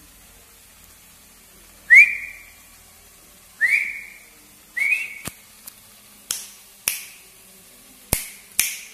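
Three short whistle-like chirps, each sliding quickly up and then holding a high note, followed by half a dozen sharp, unevenly spaced clicks.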